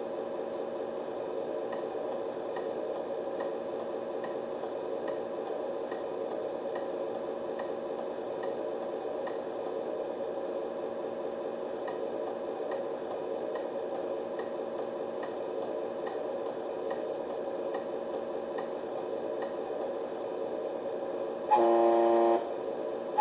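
Electronic sound module on a Tamiya Scania R620 RC truck playing a simulated truck engine idling steadily, with a turn-signal clicking about one and a half times a second for long stretches. Near the end a loud truck horn blast of under a second cuts in.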